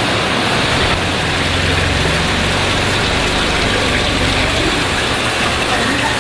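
Steady mechanical running noise with a low hum, like an engine idling.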